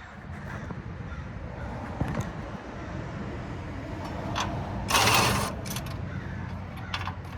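Hand-tool work with a socket wrench on the bolts of a parking lot light fixture: a short, loud, rasping burst about five seconds in and a few small clicks, over a steady low hum.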